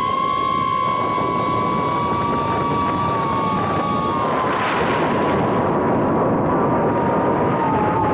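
FPV drone's electric motors and propellers whining steadily, the pitch wavering with throttle and dipping briefly about four seconds in, over a rushing noise of air.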